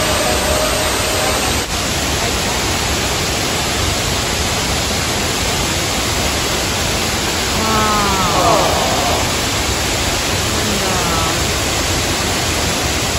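Steady, loud rushing of a waterfall, with a faint voice briefly about eight seconds in.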